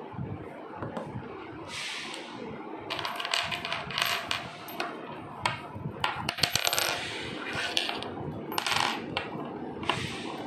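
Small steel bolts clinking against each other as they are handled and set down on a digital piece-counting scale, with a quick run of sharp clinks about six seconds in.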